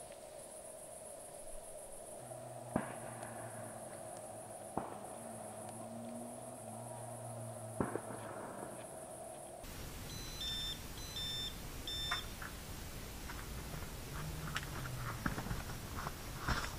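Crickets chirping in a high, pulsing trill over a steady lower drone, broken by three sharp clicks. About ten seconds in the background changes abruptly, three short electronic beeps sound, and then scattered clicks and rustles of handling follow.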